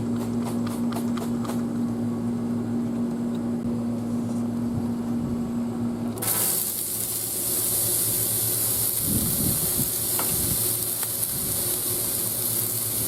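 Vegetables sizzling on a hot griddle over a steady low hum. About six seconds in, a held humming tone cuts off and a loud, even sizzling hiss sets in.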